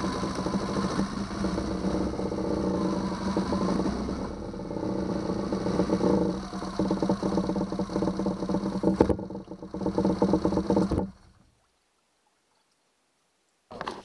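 2009 Yamaha 6 hp four-stroke outboard engine running steadily, its note becoming less even after about six seconds, then the sound cuts off about eleven seconds in. A brief knock comes just before the end.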